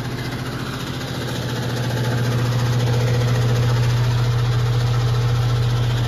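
A motor running with a steady low hum and a fine regular pulse, growing louder about two seconds in.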